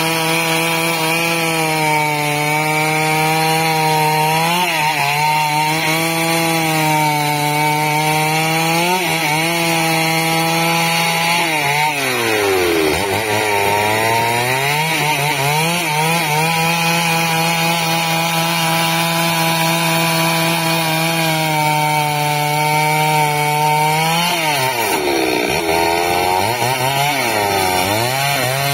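Petrol chainsaw running at high revs while ripping lengthwise through a thick wooden slab to cut square timber. The engine note holds steady, then drops sharply and climbs back a few times, deepest about halfway through and again near the end.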